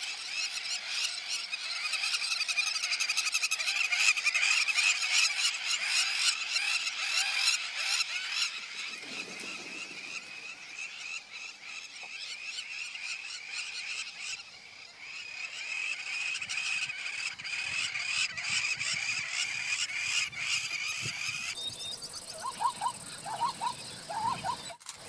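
A vast flock of red-billed quelea chattering: a dense, unbroken twittering of thousands of small birds at once. A few short, lower calls stand out near the end.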